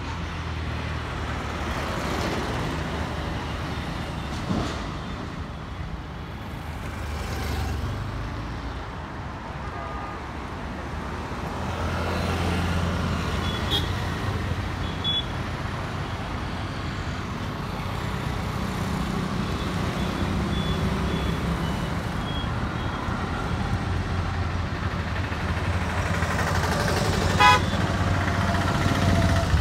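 Road traffic passing on a city street. Cars and auto-rickshaws drive by with engine and tyre noise that rises and falls, and there are a few short horn toots. The traffic gets louder near the end.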